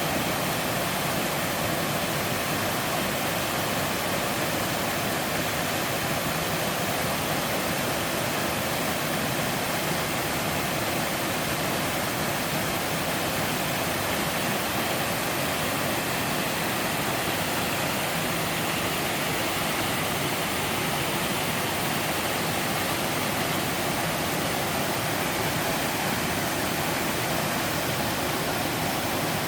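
Three-tiered waterfall pouring in a steady, unbroken rush of falling water.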